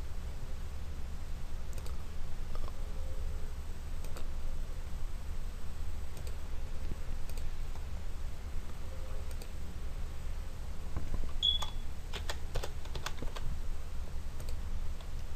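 Scattered clicks of a computer mouse and keyboard, with a quick run of several clicks about three-quarters of the way through, over a steady low hum.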